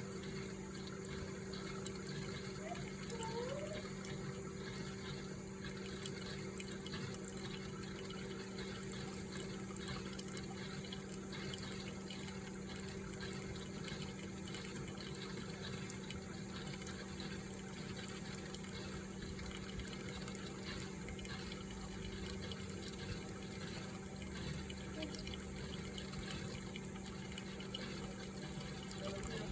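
Hamilton Beach FlexBrew Trio coffee maker brewing: a steady hum with water running.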